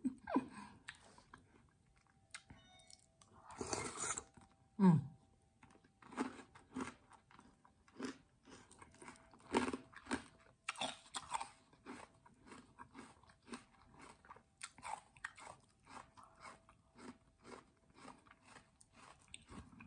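Close-up chewing and crunching of water chestnuts and toddy palm seeds in sweet syrup, in irregular crisp crunches one to a few a second.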